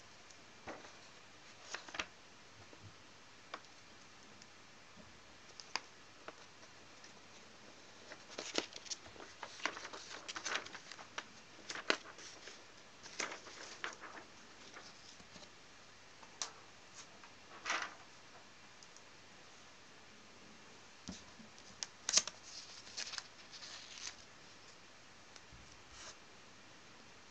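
A sheet of drawing paper being handled and set down on a drawing surface: scattered light taps, short rustles and scrapes. They come in two busier clusters, one in the middle and one near the end.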